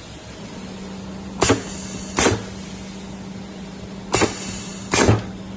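Pneumatic wire stripping machine cycling: its air cylinders and valves fire four short, sharp strokes in two pairs, over a steady low hum. The pulling cylinder is throttled down by its flow controller so it travels slowly.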